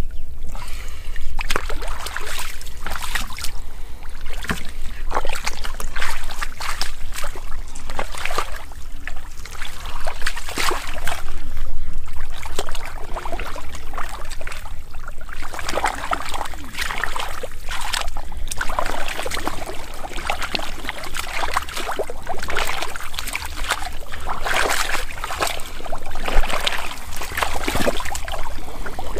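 Muddy water sloshing and splashing in repeated irregular strokes, as when hands scoop and churn a shallow mud pool.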